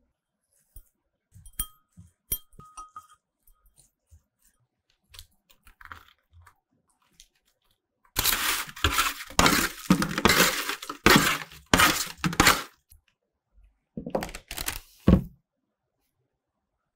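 A few light clinks of a glass bowl, then a run of loud scraping and rustling as a parsley, garlic and olive-oil mixture is spread over roasted potatoes on parchment paper in a baking tray. A shorter rustle follows near the end.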